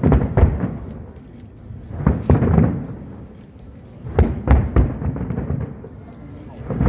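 Aerial fireworks shells bursting in quick clusters of booms, a new cluster about every two seconds.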